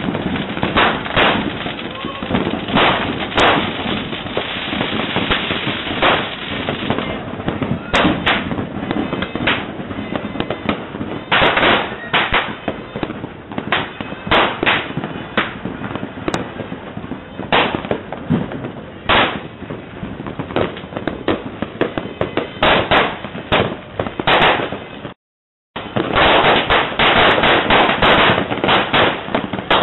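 Many fireworks and firecrackers going off at once: a dense, continuous crackle with frequent loud bangs, cutting out to silence for about half a second near the end.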